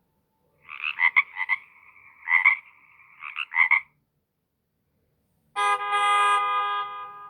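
Nokia 1200 ringtone through the phone's small speaker: a buzzy, pulsing tone that stutters in three clusters over about three seconds and then stops. About five and a half seconds in, the next ringtone starts with a loud, sustained, full chord-like tone that slowly fades.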